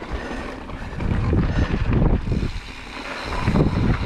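Mountain bike rolling over a rocky trail: tyres crunching over gravel and rock, and the bike rattling and clattering. It gets rougher and louder about a second in and again near the end.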